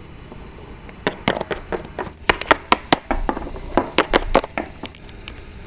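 Plastic toy pet figurines tapped and set down on a wooden surface as they are moved by hand: a run of quick, irregular clicks and taps starting about a second in.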